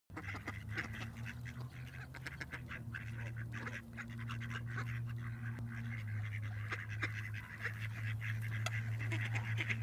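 A close flock of American coots and mallards calling: many short quacking and clucking calls overlapping throughout, over a steady low hum.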